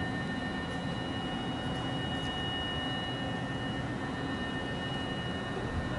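Steady high-pitched electrical whine made of several fixed tones, over a low even rumble.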